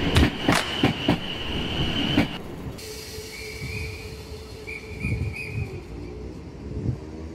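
Electric multiple-unit trains passing at close range. First a train runs through a station with fast, regular clicks of wheels over rail joints and a steady high wheel squeal. About two seconds in this cuts to a slower South West Trains Class 455 unit, which gives a steady hum, a few short wheel squeals and a whine that rises in pitch near the end.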